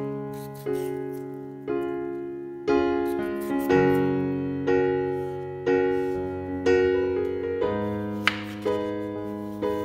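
Slow background piano music, a note or chord struck about once a second and left to fade. Near the end a knife blade clicks once against the wooden cutting board.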